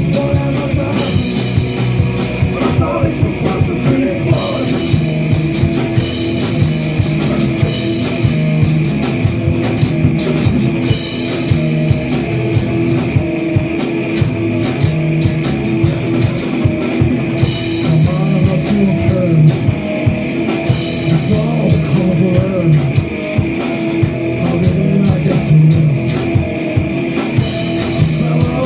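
A live punk rock band playing loud through a pub PA: a drum kit beating a steady fast rhythm under distorted electric guitars and bass, with some singing.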